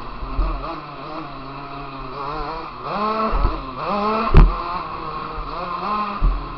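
KTM motocross bike engine, heard close from an onboard camera, revving up and falling back several times as the throttle is opened and shut. Heavy thumps from the bike over the dirt come through, the loudest a sharp knock about four and a half seconds in.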